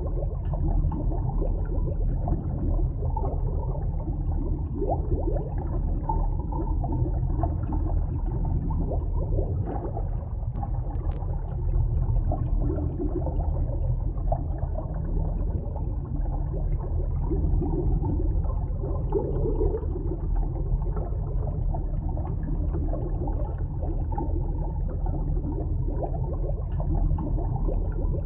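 Muffled, steady underwater water noise: a low rumble with bubbling and gurgling, and one faint click about eleven seconds in.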